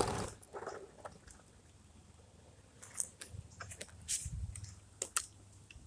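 Hands moving a First Gear die-cast rear-loader garbage truck model and plastic toy bins on pavement: a brief burst of scuffing at the start, then a handful of sharp little clicks and scrapes.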